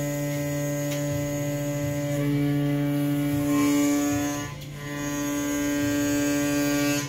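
CNC milling machine's motors running with a steady, pitched electric whine. Its tones shift about two seconds in, dip briefly partway through, then resume and cut off suddenly near the end.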